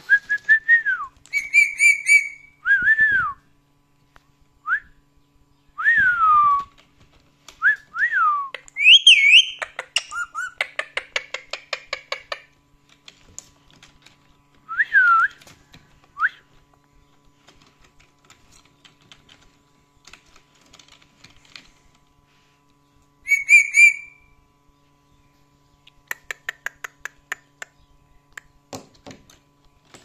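Indian ringneck parakeet whistling: a string of short whistled notes, most of them sliding down in pitch, with a harsh screech about two seconds in and another later on. Twice there is a quick, even run of clicks.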